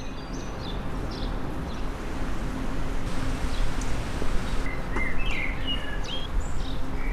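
Birds chirping with short whistled calls over a steady outdoor background hiss, the calls coming more often from about five seconds in.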